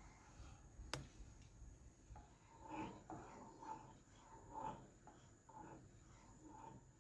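Faint, rhythmic scraping of a silicone spatula stirring milk and melting butter in a nonstick pan, about two strokes a second, starting two to three seconds in. A single sharp click about a second in.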